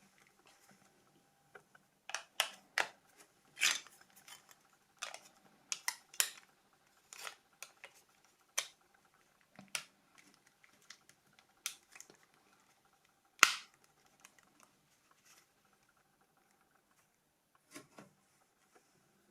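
Irregular sharp clicks and taps of small hard parts being handled, with one louder snap about thirteen seconds in, then a long near-quiet stretch with a couple of faint clicks near the end.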